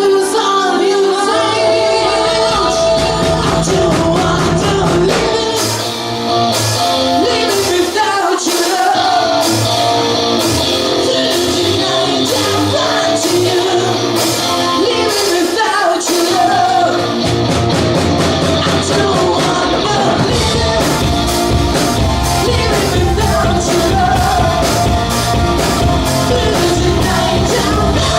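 Rock music with a singer. Regular drum and cymbal hits come in about five seconds in, and the low end gets heavier around seventeen seconds in.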